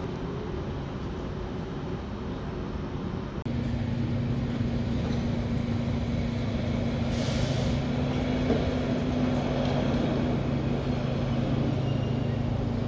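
Station ambience, then about three and a half seconds in, the steady hum of a shunting locomotive's engine as it moves passenger coaches past on the platform track. A brief hiss of air comes about halfway through.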